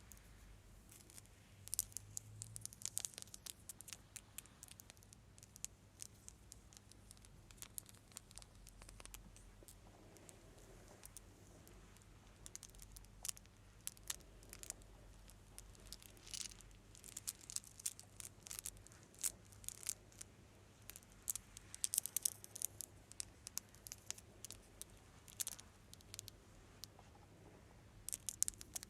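ASMR crackling and crinkling sounds: irregular clusters of fine, sharp crackles that come and go in flurries, with brief quieter gaps between.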